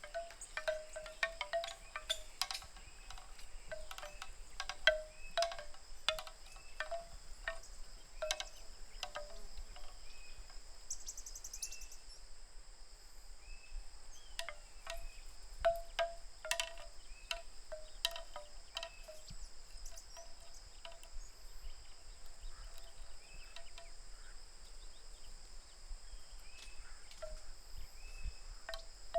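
Bamboo wind chime: hollow bamboo tubes knocking together in the wind, each clack ringing briefly. The clacks come in busy flurries near the start and again around the middle, sparser between and toward the end, over a steady high-pitched drone.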